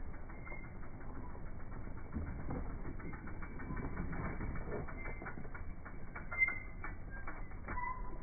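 Mountain bike's rear freewheel hub ticking in rapid clicks as the rider coasts, with a brief knock about six and a half seconds in.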